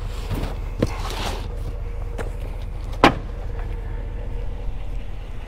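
Pickup truck engine idling with a steady low rumble, with a few short knocks and one sharp knock about three seconds in.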